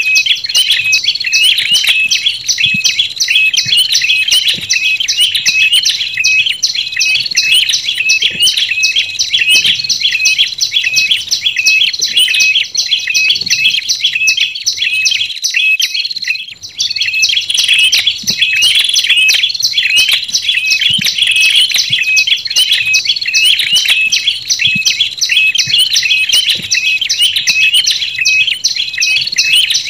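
Lure recording of prenjak lumut and red-headed prenjak (tailorbirds) calling: a fast, unbroken run of repeated high chirps, pausing briefly about fifteen seconds in.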